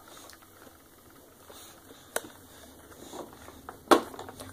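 A baby's hands bumping and patting a hard plastic push-walker toy: light rustling taps, with two sharp knocks, one about two seconds in and a louder one near the end.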